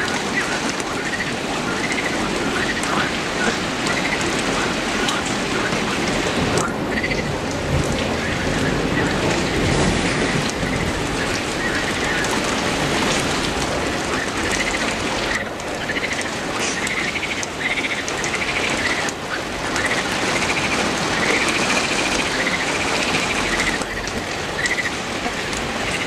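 Steady heavy rain falling on leafy trees.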